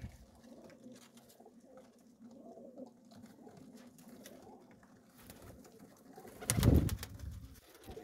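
Domestic pigeons cooing, a low repeated murmur. About six and a half seconds in there is one loud, sudden bump.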